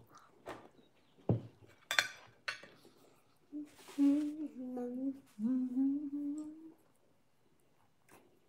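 A person humming a few held notes with closed mouth for about three seconds, starting a few seconds in. Before it, a few sharp clicks and knocks.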